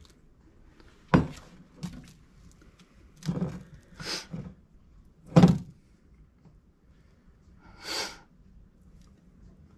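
Silicone spatula scraping and knocking against a metal mixing bowl, with a few dull thunks, the loudest about five and a half seconds in as the bowl is handled on the counter. A short breathy noise near the end.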